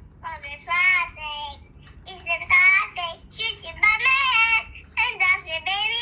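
A young child singing in short, high-pitched phrases, the pitch gliding up and down, with brief pauses between phrases.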